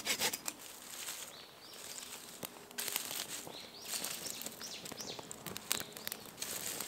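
Quiet woodland ambience: a few faint bird calls and scattered small clicks and crackles.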